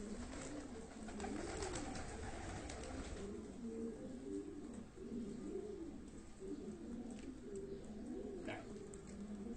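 Domestic pigeons cooing, several birds overlapping in repeated rising-and-falling coos.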